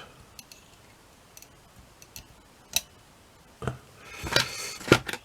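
Small metal parts of a torsion clock movement being fitted by hand: scattered light clicks and taps, a brief cluster of handling clicks about four seconds in, and one sharper click near the end.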